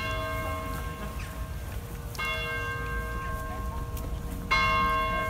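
Church bell struck three times, about two seconds apart, each stroke ringing on until the next, over a steady low rumble.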